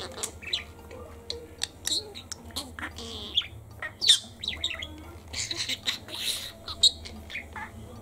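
Lutino budgerigar chattering: an irregular run of quick, high chirps and squawks, some sliding in pitch, with a longer scratchy stretch about two-thirds of the way through.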